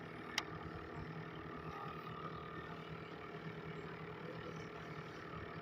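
An engine running steadily at idle, with one sharp click about half a second in.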